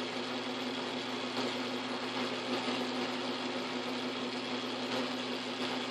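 South Bend 9-inch Workshop lathe running with an end mill turning in its chuck, the spindle spinning freely before the cut starts: a steady motor and drive hum with an even tone.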